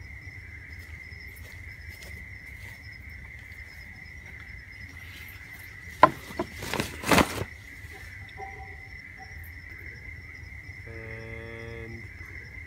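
Night insects calling steadily, one unbroken high tone with a fainter pulsing one above it. About six seconds in, a few loud flaps and swishes as a hairdressing cape is swung out. A short pitched sound near the end.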